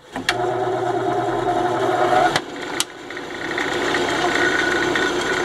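Band saw running, its blade cutting through a white plastic block to make square strips for bearing rollers. The cutting tone stops about two and a half seconds in, with a click, and the saw runs on.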